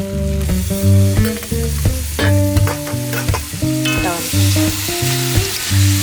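Food frying and sizzling in a pan as it is stirred, the sizzle growing louder about two-thirds of the way in, under background music with a steady melody and bass line.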